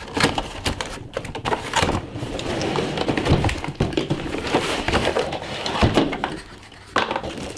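Cardboard box being tipped and handled while a plastic-wrapped wooden toilet seat slides out of it: rustling and scraping of cardboard and plastic wrap with many small knocks, and a sharper knock near the end.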